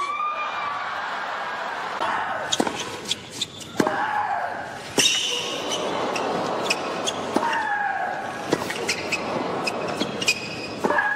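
Tennis rally on a hard court: rackets strike the ball with sharp single pops, now and then a second or so apart, over steady crowd noise from a large stadium.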